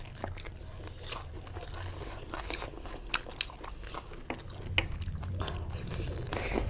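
Close-up eating sounds: chewing with irregular sharp crunches and mouth clicks.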